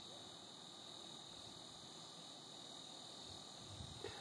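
Faint, steady high-pitched whine from a running Vexilar ice-fishing flasher, with a soft knock or two near the end.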